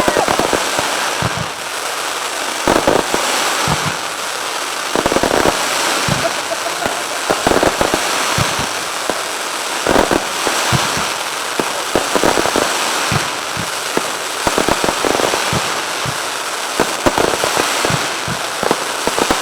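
Aerial fireworks shells bursting in a rapid barrage, sharp booms a second or so apart over a steady crackle and hiss from the falling stars.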